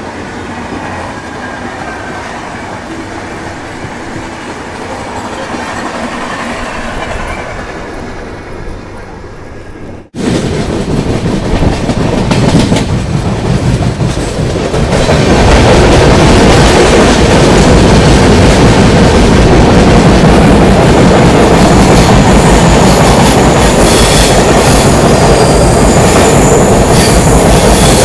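Passenger express train running on the rails: a steady rumble and clatter of wheels on track. It jumps much louder about ten seconds in and stays loud and steady from about fifteen seconds on.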